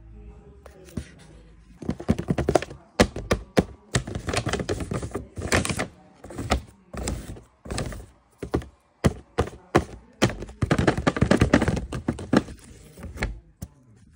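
Irregular runs of thuds, taps and paper rustling from stiff paper being handled: long rolled-paper fake nails knocking and scraping against a paper shopping bag. The sounds start about two seconds in and come in uneven clusters.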